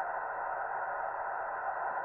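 Static from a Yaesu FT-891 shortwave receiver: a steady hiss through its narrow passband, with no Morse signal copying.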